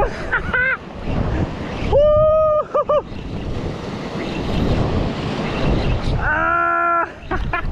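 Waves breaking and washing over a rocky shoreline, with wind buffeting the microphone. Twice, about two seconds in and again near the end, a brief steady pitched sound rises above the surf.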